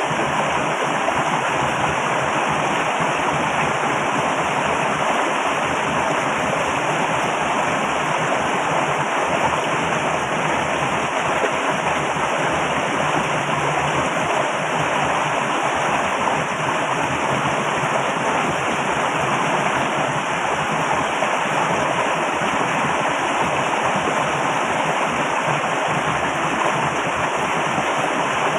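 Loud, steady rushing of flowing water.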